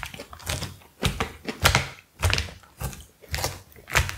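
Plastic fork picking and scraping at food in a plastic takeout tray: a string of irregular clicks and soft thunks.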